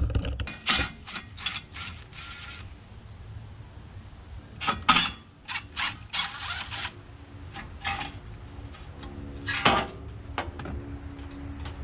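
Aerosol spray-paint can spraying in several short hissing bursts, with clicks and knocks from the can being handled between the sprays, as a tractor's exhaust stack is painted.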